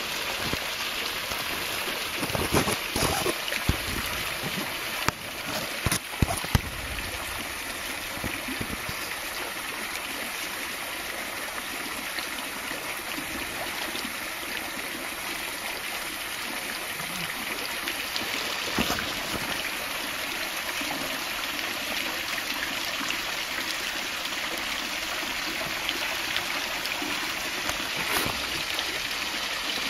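Small artificial waterfall trickling steadily from a rock feature into a pool of water, with a few low thuds in the first seven seconds.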